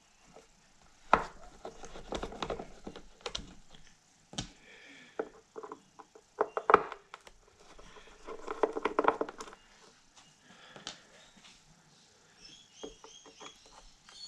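Screwdriver backing out the screws of a Technics SL-1200 MK2 turntable's circuit-board cover: irregular clicks, small knocks and scraping of metal on plastic as the screws turn and are handled. There are a few short, high squeaks near the end.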